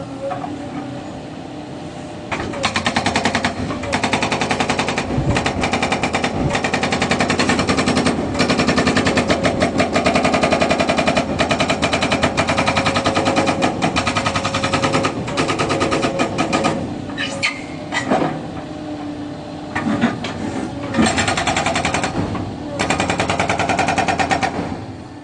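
Hydraulic breaker on a Caterpillar 307 excavator hammering in fast, even blows over the running engine. The hammering starts about two and a half seconds in and runs for about fourteen seconds, then comes back in two short runs near the end.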